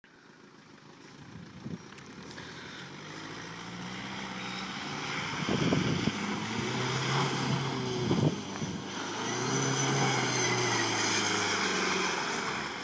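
An off-road vehicle's engine running and growing steadily louder as it approaches, with a couple of sharp knocks about halfway through and again a few seconds later.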